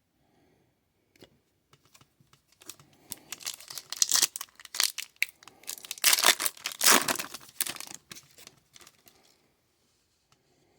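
Crinkling and rustling of plastic and trading cards being handled, with a few faint clicks first. The crinkling is loudest from about three to eight seconds in, then fades.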